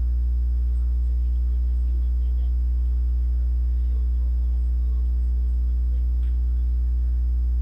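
Steady low electrical mains hum with a stack of fainter buzzing overtones above it, unchanging throughout.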